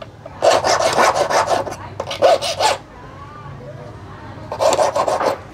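A metal lock core being cut, with fast, evenly repeated rasping strokes in two bursts: one from about half a second in lasting some two seconds, and another near the end. A song plays quietly underneath.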